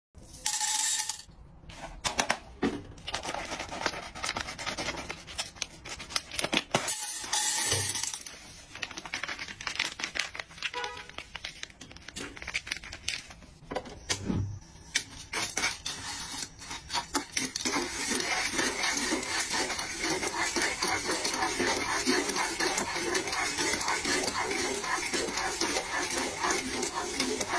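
Dry popcorn kernels, sugar and candies tipped into a nonstick pan, making a run of clicks and patters. After about the first half, a wooden spatula stirs the kernels around the pan with a steady, dense rattle and scrape.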